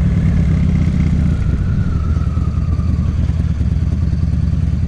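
2009 Buell XB12Ss's air-cooled 1203 cc V-twin running through a Jardine aftermarket exhaust: a steady, loud, deep rumble.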